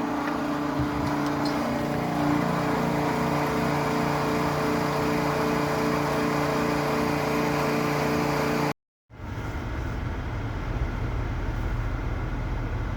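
A machine running steadily with an even pitched hum, cut off abruptly about nine seconds in; after a brief gap a deeper engine rumble takes over.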